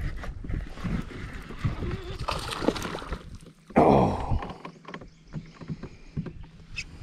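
Knocks, rubbing and water noise of someone moving about in a kayak. There is a louder rushing swish about four seconds in.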